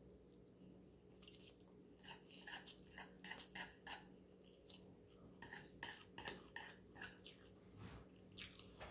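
Close-miked mouth sounds of a person slurping and chewing spicy instant noodles: a string of short, wet smacks and clicks at an irregular pace, several a second, with chopsticks now and then clicking against the bowl.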